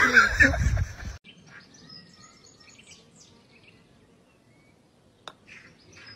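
A loud voice with room noise that cuts off abruptly about a second in, then faint outdoor background with birds chirping and a single sharp click about five seconds in.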